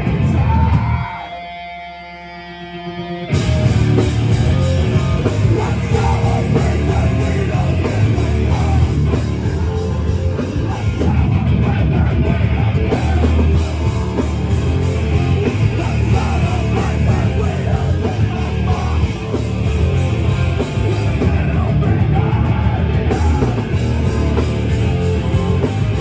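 Live hardcore punk band playing loud: distorted guitar, bass and drums with a shouted lead vocal. About a second in the band drops to a quieter held note for two seconds, then comes back in at full volume.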